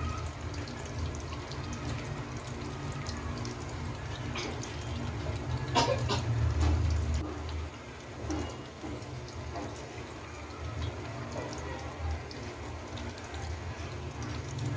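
Chicken tenders deep-frying in hot oil in a steel wok: a steady crackling sizzle over a low rumble. A single sharp knock sounds about six seconds in.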